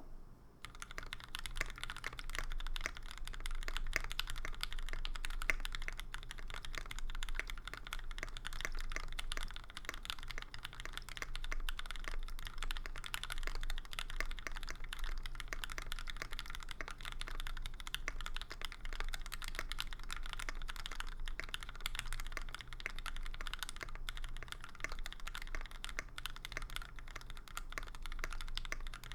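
Continuous typing on a Mira SE mechanical keyboard with an aluminium plate, lubed Gateron Yellow linear switches and JTK Tianwen keycaps: a steady, dense stream of key clacks over a low steady hum.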